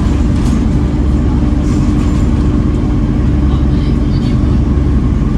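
Volvo B7TL bus's six-cylinder diesel engine running steadily, a loud low drone with a constant hum over it and a few faint light rattles.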